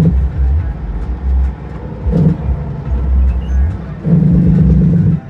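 Heavy diesel truck engine heard from inside the cab, pulling at low speed. Its note swells in short surges: one at the start, one about two seconds in, and a longer one about four seconds in.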